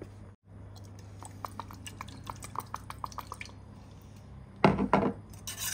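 A run of small, light ticks, then two louder knocks near the end.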